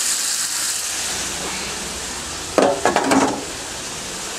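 Chopped vegetables and salt pork sizzling in a hot skillet. About two and a half seconds in, a short clatter of dishes at the sink, several knocks with ringing clinks.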